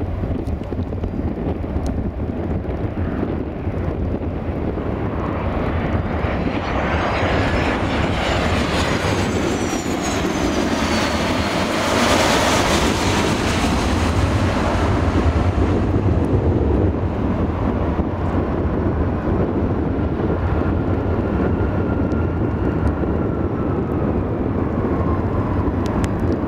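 Boeing 717 jet airliner passing close on landing approach: its engine noise swells to a peak about halfway through and then fades, with a high whine that rises and falls as it goes by. Strong wind rumbles on the microphone throughout, and a fainter jet whine falls slowly near the end.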